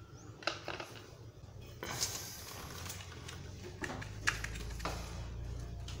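Handling noise from a thin PET plastic bottle: a series of sharp clicks and a brief crinkle about two seconds in. A low steady hum comes in about four seconds in.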